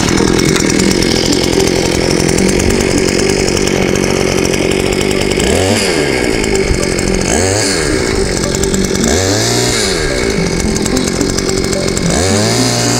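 Small 52 cc two-stroke engine of a Carver T-300 mini-cultivator running hard while it tills a garden bed. The engine speed rises and falls back four times.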